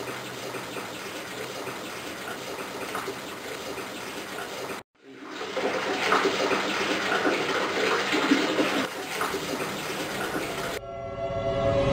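Water running and splashing in a tiled bathtub. A brief cut to silence comes about five seconds in, then louder swishing as a hand stirs the water. Music comes in near the end.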